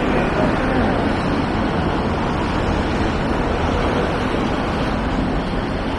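Steady city street noise: an even rush of traffic and air, with no distinct events.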